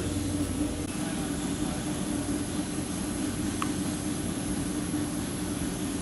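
Steady hum of running industrial machinery: a low drone with a constant mid-pitched tone over an even rushing noise, and one brief high blip about three and a half seconds in.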